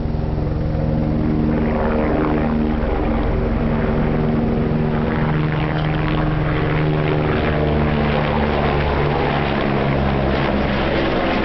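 Single-rotor helicopter flying close overhead with an underslung load on a long line: engine and rotor noise with a rapid chop from the blades, growing louder over the first second or so and then holding steady.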